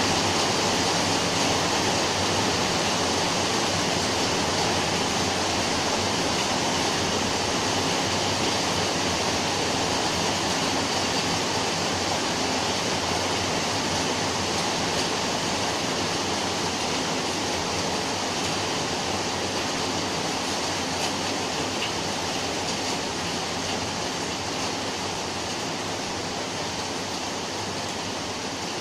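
Rain falling steadily, an even hiss that slowly grows quieter toward the end.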